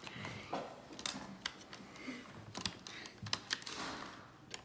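Irregular light clicks and taps from a laptop being handled as a memory card is pushed into its side card slot.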